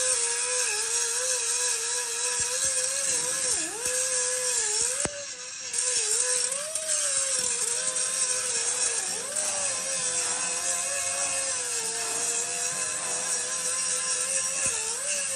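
A power tool or motor running with a steady whine whose pitch wavers and dips sharply several times, as if bogging under load, over a continuous hiss; it drops out briefly about five seconds in.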